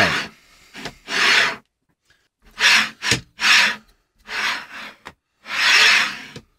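A 3D printer's acrylic Y-axis carriage is slid back and forth by hand along its smooth steel rods. Its linear bearings make a rasping rub with each stroke, about six strokes roughly a second apart. It runs smoothly on bearings that are still unlubricated.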